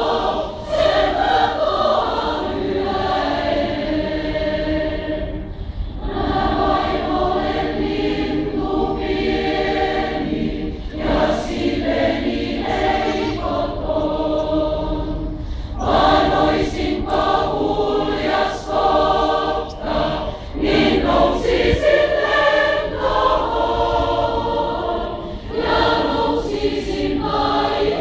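Large mixed mass choir of several hundred voices singing, sustained chords in phrases of about five seconds with brief breaks between them.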